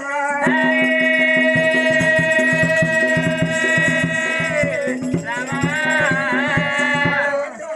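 Oggu Katha folk ballad singing: a singer holds one long note for about four seconds, slides down off it, then sings a winding phrase. Steady drum beats and a high jingle of small percussion run underneath.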